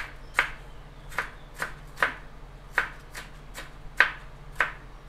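Knife chopping and slicing mature galangal on a cutting board: about ten sharp, separate knocks, roughly two a second at an uneven pace.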